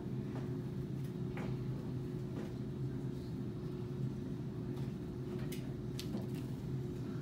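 Quiet classroom room tone: a steady low hum with scattered faint clicks and taps.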